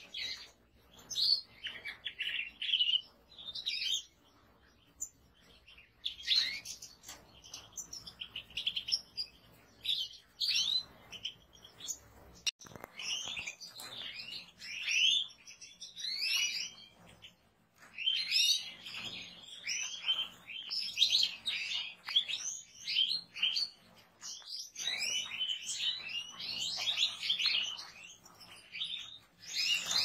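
A flock of European goldfinches twittering and chirping, many quick high notes overlapping in bursts with short lulls between.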